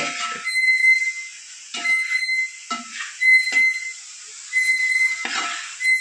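A long metal ladle scraping around a large metal cooking pot of thick curry. Each stirring stroke gives a short, high squeal, about five strokes at roughly one-and-a-half-second intervals.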